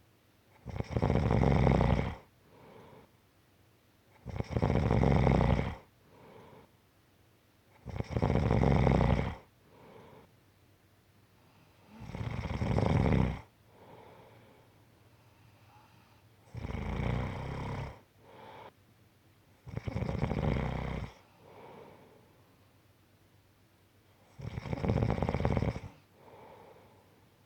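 Slow, steady snoring: seven loud snores about every four seconds, each followed by a much softer breath out.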